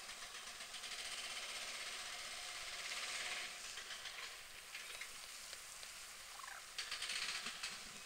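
A flock of birds calling together in a dense, rapid chatter. It swells about three seconds in and again near the end, with one short falling call just before the second swell.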